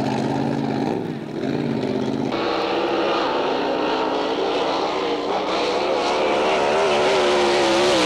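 Racing drag boat engine running flat out during a run, a loud steady high engine note that wavers in pitch. The sound changes abruptly about a second in and again just past two seconds, then grows slightly louder toward the end.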